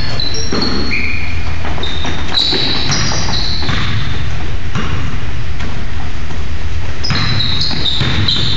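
Basketball sneakers squeaking on a hardwood gym floor as players cut and run, in short high squeals. The ball bounces on the floor as it is dribbled.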